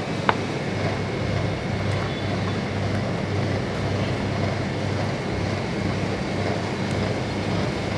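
Steady street traffic noise with a low engine rumble, and one short sharp click just after the start.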